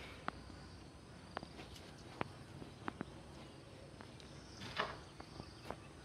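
Faint steady outdoor background noise with a handful of short, sharp clicks and taps at irregular intervals, the loudest a brief rustling burst about five seconds in.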